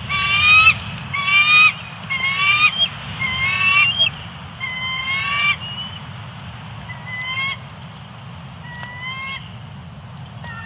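Bald eagle calling: a run of five loud, high, upward-sliding squeals about a second apart, then two fainter ones, over a steady low rumble.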